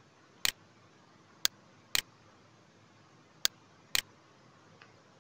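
Computer mouse button clicking in pairs, a press and then its release about half a second later, as strokes are drawn with an on-screen pen tool; three such pairs, each a sharp click followed by a slightly duller one.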